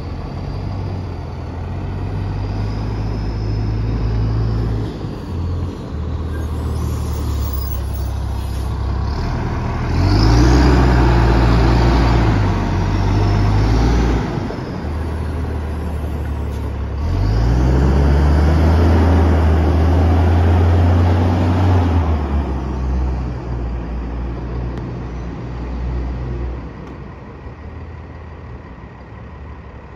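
Diesel city buses running, with two bus engines revving up in turn as they pull away, about ten and seventeen seconds in. Each starts with a rising pitch and a high whine, then settles into a steady drone that fades near the end.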